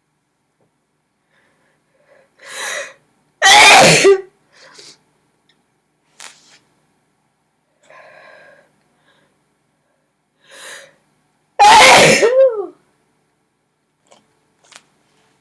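A woman sneezing twice, about eight seconds apart. Each loud sneeze comes after a quick in-breath, and the second trails off with a falling pitch. There are faint breathing sounds between the sneezes.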